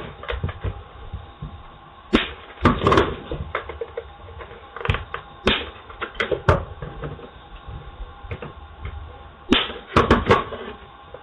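Sharp snips and plastic cracks as the factory door speaker is cut out with cutters, in irregular clusters with a quieter rustle of handling between them.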